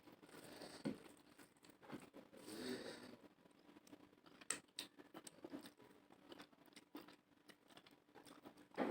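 Quiet eating sounds: soft clicks, smacks and small crunches of chewing and handling rice and curry, with a longer soft rustling noise about two and a half seconds in.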